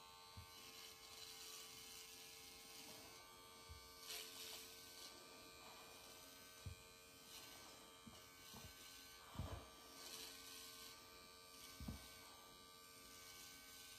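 Cordless dog clipper with a narrow trimming head running, a faint steady buzz, as it shaves fur on a dog's paw. There are a few soft low bumps from handling.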